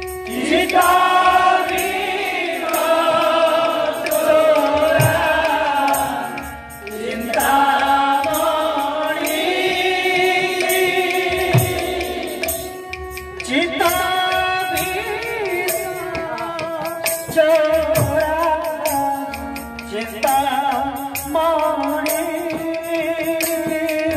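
Devotional kirtan song: a man singing a melody over a portable electronic keyboard and khol barrel drums, with frequent drum strokes. The singing breaks off briefly twice, about a third of the way in and near the middle.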